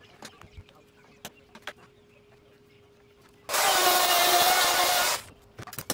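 Light knocks and clatter of a plywood sheet and clamps being handled, then a handheld wood router run in one loud burst of about a second and a half, its motor whine stopping about a second before the end.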